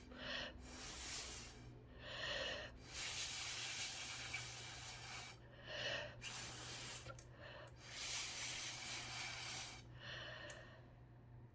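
Airy hissing in repeated bursts of one to several seconds, over a steady low hum.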